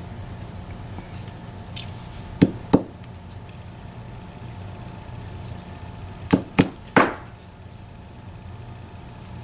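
Sharp metal knocks and clinks of a disassembled EVVA ICS lock cylinder and tools on a hard surface: two about two and a half seconds in, then three more around six to seven seconds in, the last ringing briefly. A faint steady hum runs underneath.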